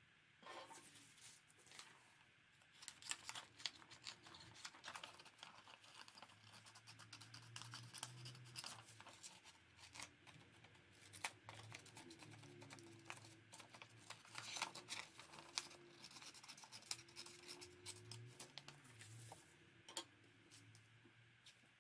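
Paper and card handled on a wooden tabletop: soft rustling and crinkling with many light, sharp ticks and taps as sheets are pressed down, lifted and moved.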